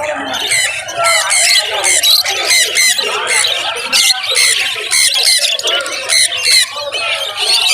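Many caged birds chirping and squawking at once: a dense, loud chorus of rapid, high calls.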